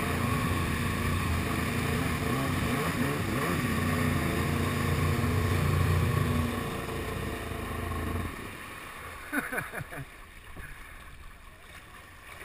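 Kawasaki SXR 800 stand-up jet ski's two-stroke engine with a dry pipe running at speed. It eases off about six seconds in and cuts out about two seconds later. Water splashes around the hull as the ski coasts in.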